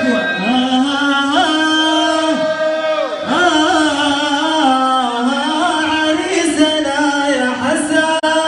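Live Middle Eastern folk music: a male voice singing long, held notes that slide from pitch to pitch, with little percussion under it.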